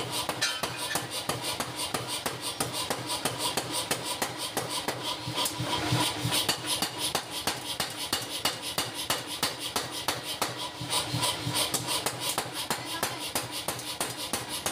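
Power forging hammer pounding a red-hot chopper blade held in tongs on the anvil die: a rapid, steady series of metal-on-metal blows, several a second.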